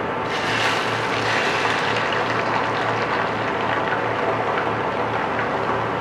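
Beaten egg sizzling as it is poured into a hot square nonstick pan on an induction cooktop; the sizzle starts just after the opening moment and runs on steadily. A steady low hum and a thin whine sit underneath.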